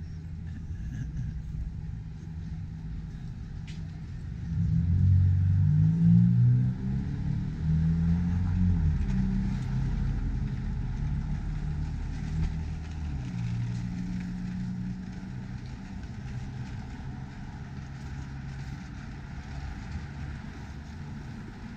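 A car driving past on the street, its engine getting louder about four and a half seconds in and rising in pitch in steps as it accelerates, then fading away over the next ten seconds over a steady hum of street traffic.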